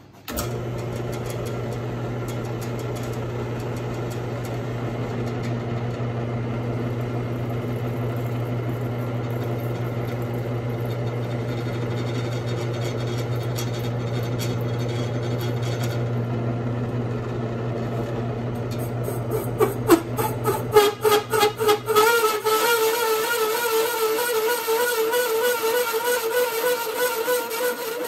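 Bench mill spindle driving a hole saw through an aluminium plate: a steady motor hum at first, a spell of rapid clattering about twenty seconds in, then the cut goes on with a wavering ringing tone.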